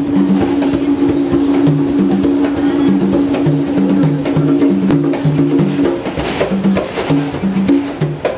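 Hand drums beaten with the palms in a quick, syncopated rhythm, the strokes giving short low notes of a few different pitches over a steady low hum.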